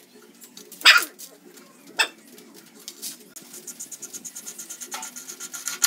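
Metal parts clinking at a Honda Super Cub frame's steering head as the steering stem bearing and nut are fitted by hand: two sharp clinks about one and two seconds in. A fast, even ticking follows near the end.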